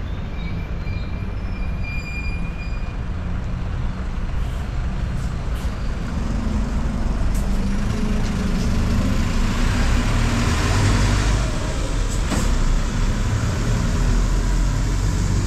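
Road traffic on a rainy city street: motor vehicles running and passing with tyre hiss, growing louder from about eight seconds in as a heavy vehicle's engine comes close. A brief thin high squeal sounds about two seconds in.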